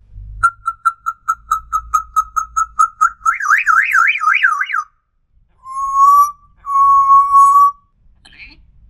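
African grey parrot whistling: a fast run of short pips at one pitch, about five a second, then a rapid warbling trill, then two long steady whistled notes.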